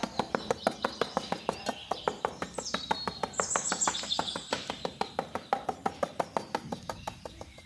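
Rapid, regular clicking, about six clicks a second, fading toward the end, with birds chirping a few times in the middle.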